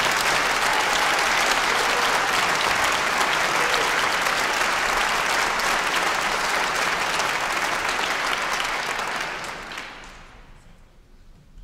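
Concert-hall audience applauding, steady at first and then dying away about nine to ten seconds in.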